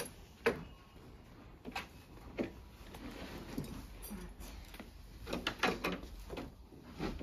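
Horse tack being handled against a wooden stable door: a saddle, a bridle with its metal bit and buckles, and saddle pads shifted about, giving a string of short knocks and metal clinks, with a quick cluster of them just before the end.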